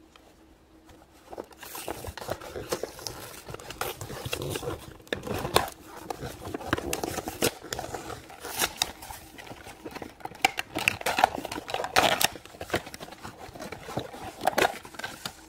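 A toy figure pack being handled and opened: irregular crinkling, scraping and clicking of plastic and cardboard packaging, starting about a second and a half in.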